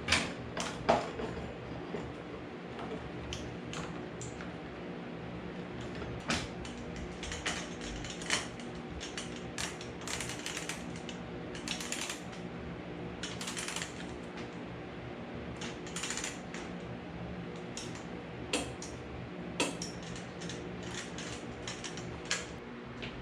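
Irregular metallic clicks, clinks and clanks of hand tools and suspension parts being handled, over a steady background hum.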